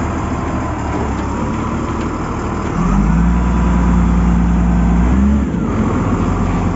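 Caterpillar 950G wheel loader's diesel engine running steadily, then revving up under load for about three seconds from roughly three seconds in before dropping back, as its newly fitted handbrake is tried.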